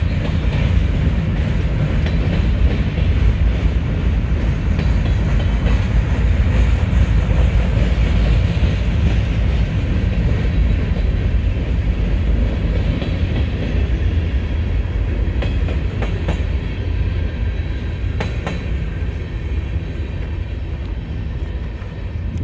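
Freight train of covered hopper cars rolling past at close range: a steady, loud low rumble of steel wheels on the rails, fading over the last several seconds as the end of the train goes by.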